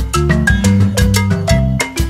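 Upbeat background music with a steady beat, short struck melody notes over a bass line.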